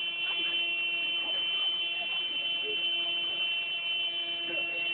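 A vehicle horn honking without a break in one steady, unchanging tone, a horn that keeps sounding and won't stop.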